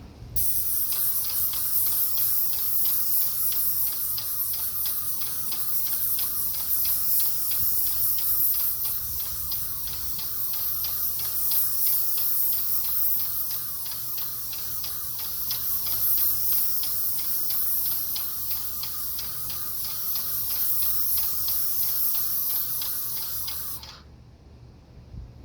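Graco 395 airless paint sprayer spraying paint: a steady loud hiss from the gun with a fast, even ticking running through it, starting abruptly and cutting off sharply about 24 seconds in as the trigger is released.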